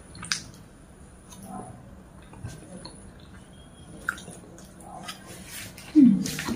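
Close-up eating sounds of satay being chewed: soft wet chewing and lip-smacking with scattered small mouth clicks. About six seconds in, a short, loud, low sound falls in pitch.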